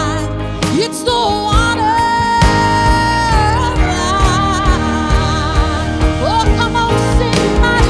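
Live worship band playing, with a steady kick-drum beat about twice a second and a singer holding one long note.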